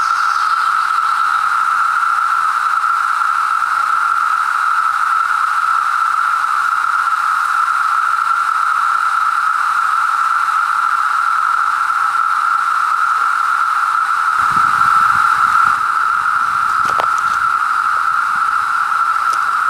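A chorus of 17-year periodical cicadas (Magicicada) droning loud and steady, one continuous even pitch. A brief low rumble sounds about three-quarters of the way through.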